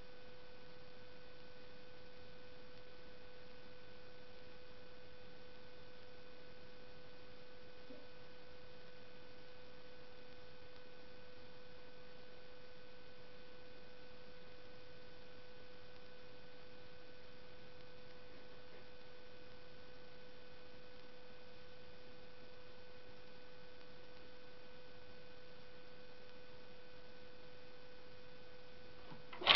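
A steady electrical hum at one unchanging pitch, with a few fainter higher tones above it. No dog or other sounds come through it.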